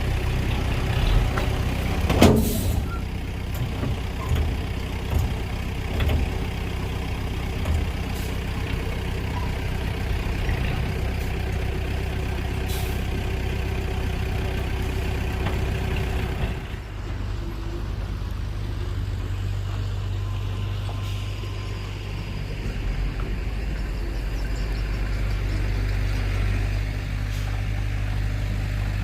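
Heavy diesel engine of earthmoving machinery running steadily with a low drone, with a few metallic clanks and knocks in the first few seconds. About two-thirds of the way through, the higher rattle and noise fall away, leaving mainly the low engine drone.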